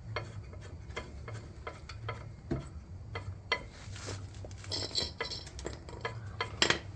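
Irregular light metallic clicks and clinks of hand tools and brake parts being handled while a caliper bolt is fitted, with a sharper clank near the end.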